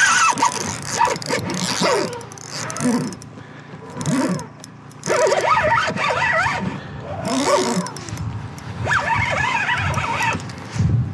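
A man's wordless excited exclamations and strained cries in several short bursts of rising and falling pitch, with pauses between, while he plays a hooked pike on a bent spinning rod.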